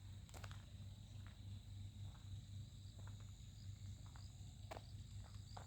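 Faint, steady high-pitched trilling of crickets or similar insects, with a few soft footsteps.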